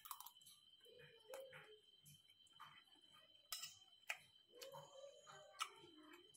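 Faint chewing and mouth sounds of a person eating, with a few soft clicks of a metal spoon against a glass bowl.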